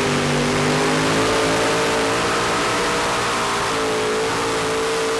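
Four outboard boat engines ganged together by gearboxes on a super modified pulling tractor, running flat out under load as it drags the sled. The note holds steady with a slight rise in pitch about three and a half seconds in.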